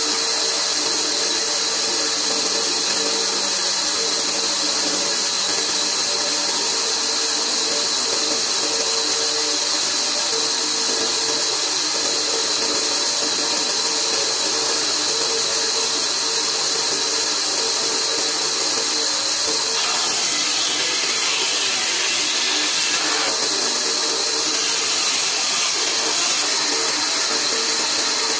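Large belt-driven vertical bandsaw running steadily with a constant hiss and a low hum, its blade cutting through a wooden board.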